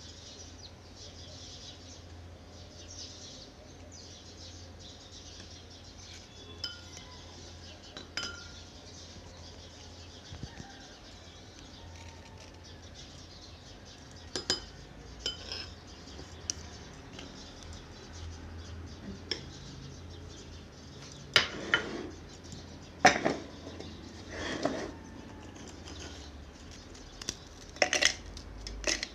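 Scattered clinks and scrapes of a metal spoon against ceramic bowls while Oreo cream filling is scraped off the cookies. Several louder knocks near the end as the cookie wafers go into a plastic food-chopper bowl.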